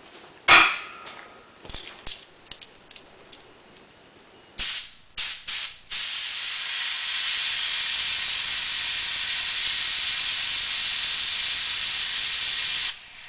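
A sharp knock and a few handling clicks. Then a compressed-air blow gun fires three short blasts at a hand-held Schreckling turbine wheel, then blows a steady hiss for about seven seconds that cuts off suddenly near the end. The air spins the wheel so the hand can feel whether it is in balance.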